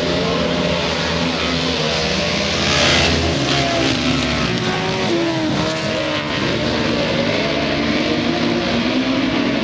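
A pack of speedway sidecar outfits racing round the track, several motorcycle engines running hard at once. The loudest moment is about three seconds in as outfits pass close by, and the engine pitches dip and rise as they go past and into the turn.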